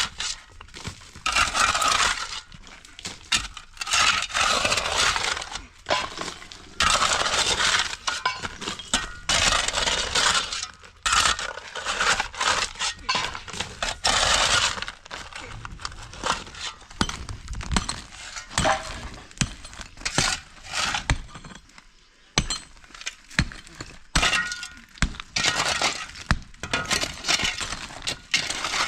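Repeated breaking, crashing and clinking of debris as parts of an old house are smashed and fall during demolition.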